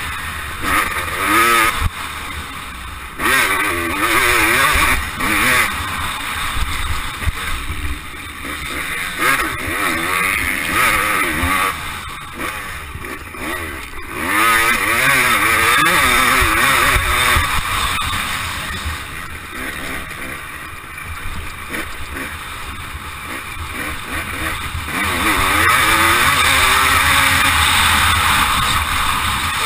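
Motocross bike engine heard from the rider's helmet camera while riding a lap, its pitch rising and falling over and over as it accelerates, shifts and backs off.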